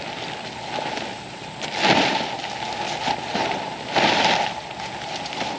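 Tent rain fly fabric rustling as it is handled and flapped out over the tent, with two louder swishes about two and four seconds in as it is flung over.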